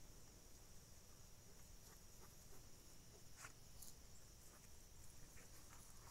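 Near silence: a faint, steady high-pitched insect drone, with a few soft scattered clicks, one a little louder about three and a half seconds in.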